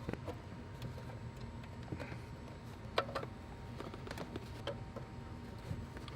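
A few scattered light clicks and taps over a faint, steady low hum.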